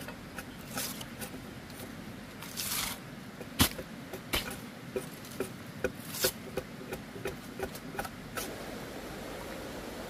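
A run of light knocks and taps, the loudest about three and a half seconds in, coming two or three a second from about five seconds in. A steady hiss of rain or running water takes over near the end.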